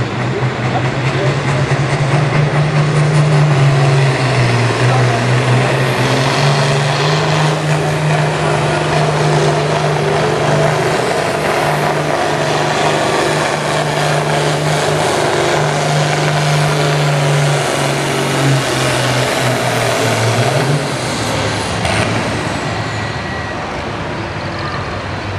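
Modified farm pulling tractor's engine at full throttle under load, dragging a weight-transfer sled down the track. Its pitch dips and recovers several times as it bogs and picks up, then falls away near the end as the pull finishes.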